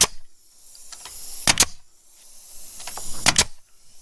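Pneumatic 16-gauge nail gun firing nails into pine soffit boards: three sharp shots about a second and a half apart, each a quick double crack.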